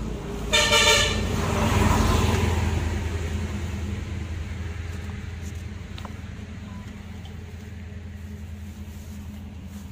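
A vehicle horn honks once, briefly, about half a second in, and the vehicle passes along the road, its noise swelling for about a second and fading away over the next few seconds.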